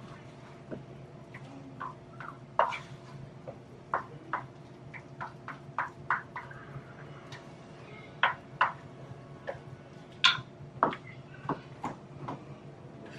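A cooking spoon clinking and tapping against pots and pans on the stove, in irregular light clicks, over a faint steady hum.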